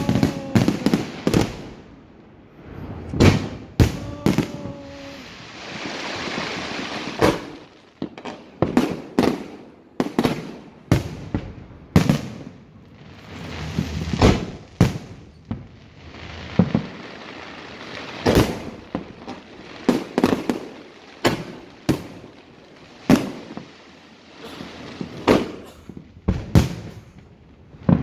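Fireworks display: an irregular run of sharp bangs and booms, often several a second in quick clusters.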